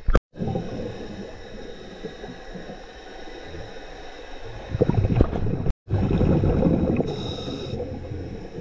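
Underwater recording: a gurgling, rumbling wash of water and exhaled air bubbles around a diver's camera, louder in surges past the middle, with a faint steady high whine beneath it. The sound drops out abruptly twice, right at the start and about six seconds in.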